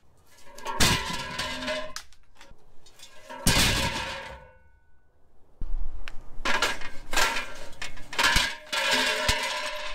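Aluminum screen-printing frames clattering and clanging with a metallic ring as they are thrown down, first into a pickup bed, then onto a wire-mesh scrap cart: two crashes in the first half, then a run of clangs in the second half.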